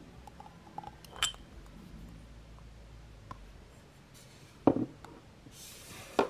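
Glass candle jar handled with a couple of small glass clicks, then set down on a table with a dull knock. A brief brushing rustle follows near the end.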